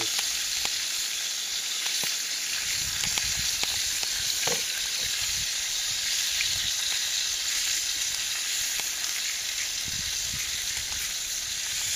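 Perch frying in vegetable oil in a skillet over a campfire: a steady sizzle, with a few faint clicks.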